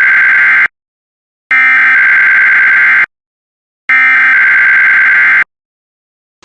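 Emergency Alert System SAME header: the buzzy, screeching digital data burst sent three times, each about a second and a half long with a short silence between, the first already sounding and cutting off just under a second in. It is the coded header that opens an EAS test message.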